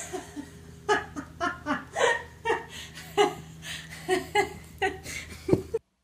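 A person laughing hard in a rapid string of separate bursts, after a short loud rush of noise at the very start; the laughter cuts off abruptly near the end.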